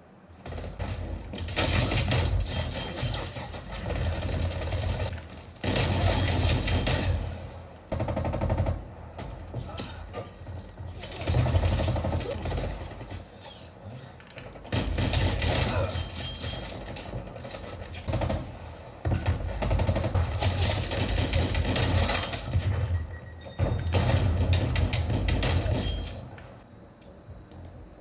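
Video game automatic gunfire from a first-person shooter, coming in repeated bursts of one to two seconds with quieter game sound between them.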